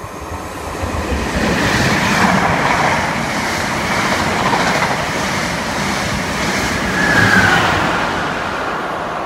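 Greater Anglia locomotive-hauled intercity train, a Class 90 with Mark 3 coaches, running through the platform at speed without stopping. The rush and wheel rumble build up over the first two seconds and carry on as the coaches go by, with a brief high squeal about seven seconds in, then slowly fade.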